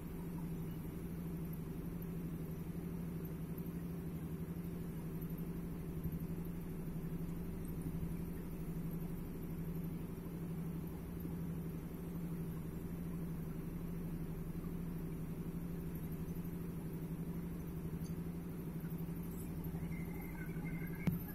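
A machine running steadily with an even low hum.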